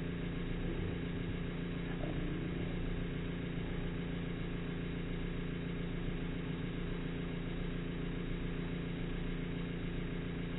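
Espresso machine pump humming steadily as it pushes water through the puck during extraction from a bottomless portafilter; an even, unchanging hum made of several steady tones.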